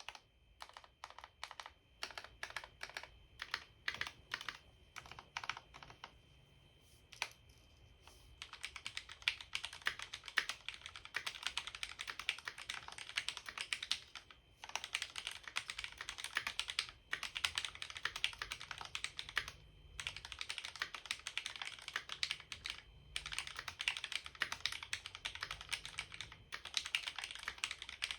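Typing on a Cherry MX Board 3.0 mechanical keyboard with linear Cherry MX Red switches lubed with Super Lube spray and stabilizers greased with Permatex. It starts with single, spaced keystrokes, then about eight seconds in turns to fast continuous typing with a few short pauses.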